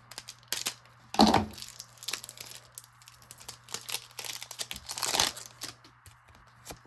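Hockey card pack wrapper being torn open and crinkled by hand, with the cards clicking against each other. The loudest rips and rustles come about a second in and again about five seconds in.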